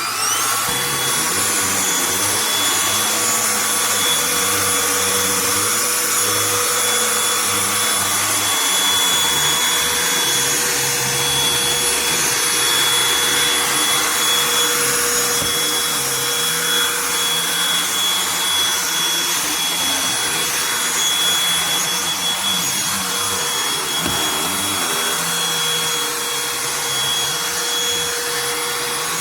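Cordless handheld vacuum switched on, its motor whine rising to speed in the first second, then running steadily with a high whine while it is worked over carpeted stairs.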